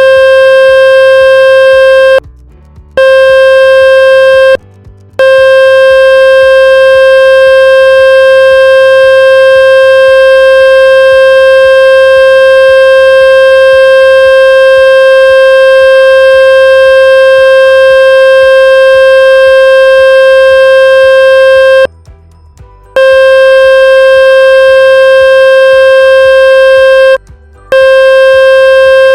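A loud, steady electronic buzz tone, fairly high and buzzy with many overtones, of the kind played through a phone speaker to shake water and dust out of it. It cuts out briefly four times: twice in the first few seconds and twice near the end.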